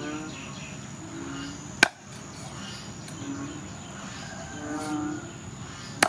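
Two sharp chops of a cleaver cutting through catfish into a round wooden chopping block, about four seconds apart. A steady high insect drone runs underneath.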